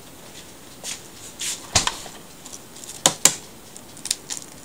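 Several short clicks and knocks, loudest about two and three seconds in, as a stainless steel mixing bowl with a spoon in it is shifted on the counter.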